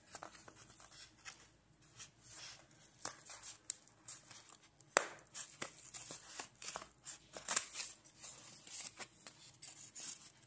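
Steel scissors cutting through a molded paper-pulp egg tray: faint, irregular snips and clicks as the blades close on the cardboard, with rustling as the tray is handled.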